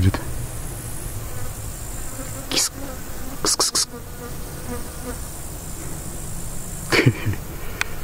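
Insects buzzing steadily, fly-like, close by, with a few short sharp clicks or rustles in the middle and near the end.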